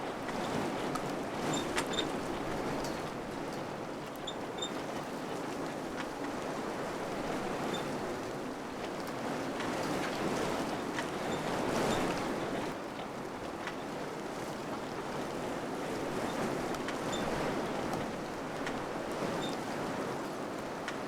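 Wind blowing in gusts through a village, swelling and easing, strongest about halfway through, with a few faint ticks scattered over it.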